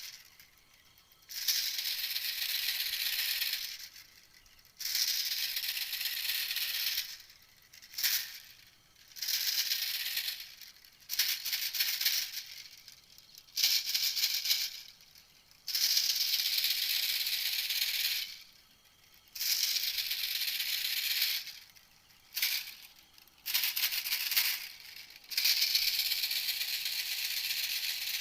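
A recorded animal call played as a hunting lure: dry, high rattling buzzes, each one to three seconds long, repeated about a dozen times with short gaps between them.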